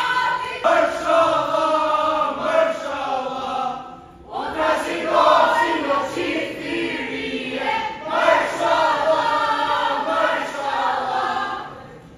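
A group of young women singing together in three long phrases, with short breaks about four and eight seconds in; the singing fades out just before the end.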